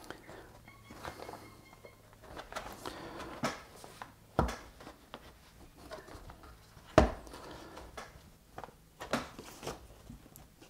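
A plastic embroidery hoop being pressed together over fabric and stabilizer: soft rustling and handling, with a few sharp knocks of the plastic rings. The loudest knocks come about four and a half and seven seconds in.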